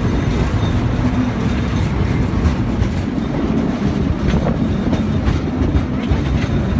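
San Francisco cable car rolling on its rails: a steady low rumble with light clacking from the wheels and track.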